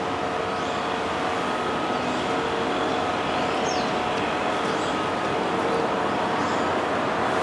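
Steady outdoor background noise like distant road traffic, with a few short high bird chirps scattered through it.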